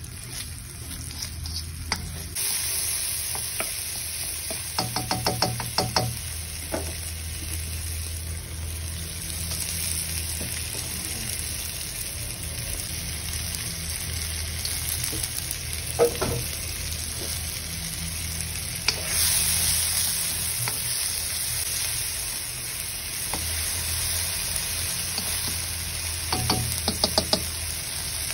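Sliced shallots, garlic and red chillies sizzling in hot oil in a wok while being stirred, with quick clusters of spatula taps and scrapes against the pan about five seconds in, around sixteen seconds and near the end. The sizzle grows louder about two seconds in and again around nineteen seconds, over a steady low hum.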